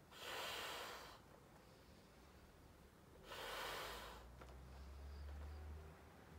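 Breathing of a person blowing up a balloon by mouth: two faint, noisy breaths about a second long, one at the start and one about three seconds in.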